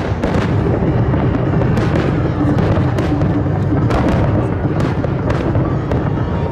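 Fireworks display: aerial shells bursting in repeated sharp bangs, about one every second or less, over a continuous rumble and crackle of many more shells going off.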